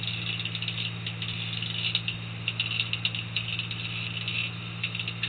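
Fishing reel ratcheting in irregular clicks as a hooked albacore tuna is fought on the line, over the steady hum of the boat's engine.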